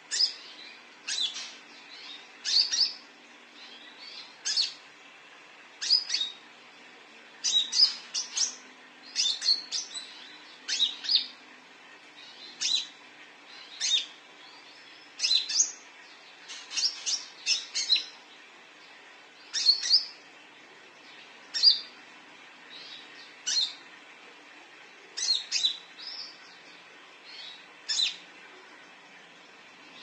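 Caged konin, a small sunbird, calling: short, sharp, high chirps, single or in quick runs of two to four, repeated every second or two.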